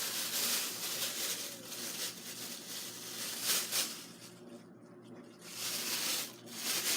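Rustling and handling noise from a package being unpacked, swelling and fading several times over a faint steady hum.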